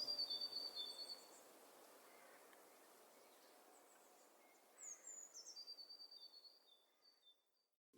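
Faint bird calls: series of short high chirps, each bout led by a quick falling note, once at the start and again about five seconds in, over a faint hiss.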